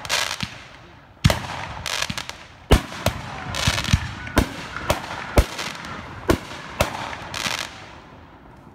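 Aerial firework shells bursting overhead: about eight sharp bangs at uneven intervals, with short stretches of hissing crackle between them from glittering star effects.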